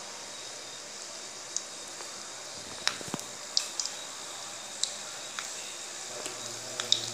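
Garlic cloves frying in hot oil in a kadai: a low steady sizzle with scattered sharp pops of spitting oil, which come more often near the end.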